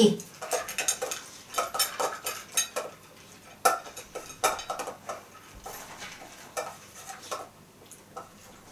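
A whippet eating from a stainless steel food bowl: a run of quick metal clinks and rattles as the bowl is knocked about, thinning out near the end.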